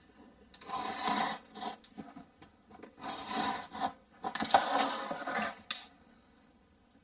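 Blade scraping through the paper face of plasterboard, three drawn cutting strokes about a second or more each.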